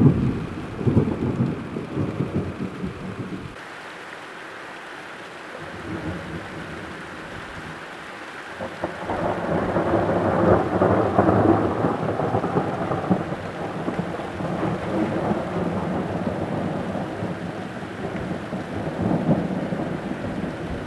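Thunder rolling over steady rain. A heavy rumble cuts off about three and a half seconds in, leaving only the hiss of rain. From about nine seconds in a long peal of thunder builds, peaks and slowly dies away, with a last swell near the end.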